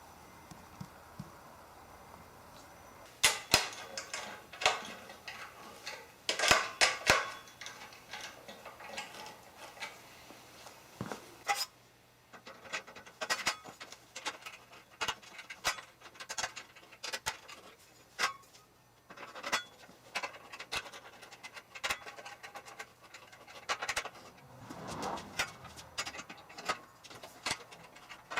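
Aluminium extrusion parts being handled and fitted together: scattered metallic clicks, clinks and knocks, loudest in two clusters a few seconds in, with a brief scraping slide near the end.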